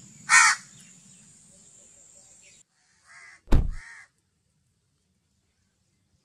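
A crow caws once loudly, then twice more faintly around three seconds in, while a car door slams shut about three and a half seconds in.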